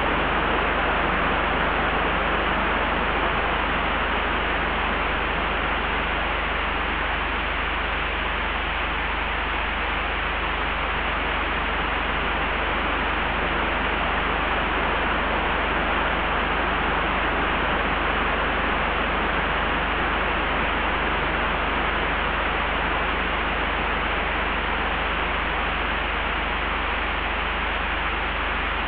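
Layered wind ambience: a steady rushing of wind over a deep, constant low rumble, swelling and easing slowly without any sudden gusts.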